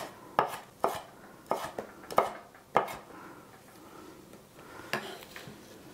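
Chef's knife chopping across strips of red chili pepper on a wooden cutting board: about six crisp knocks roughly every half second. The knocks stop about three seconds in, with one more knock near the end.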